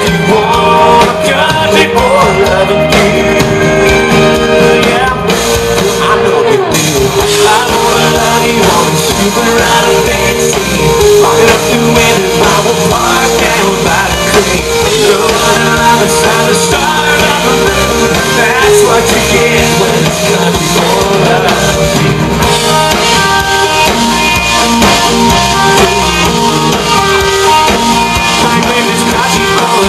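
Country-rock band playing live and loud, electric guitars to the fore.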